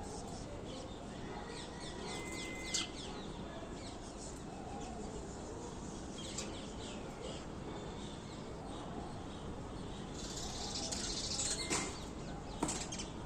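Sparrows chirping now and then over a steady background hiss, with a busier stretch of high chirping near the end.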